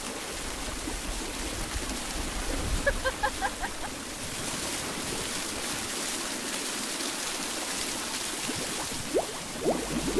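Well water gushing from an aeration outlet pipe and splashing onto a person standing beneath it, a steady rush. A short run of quick high notes about three seconds in, and rising swooshes near the end.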